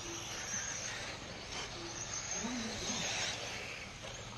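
Ambience of a dirt RC race track with 1/8-scale electric buggies running: a steady high hiss with faint distant voices.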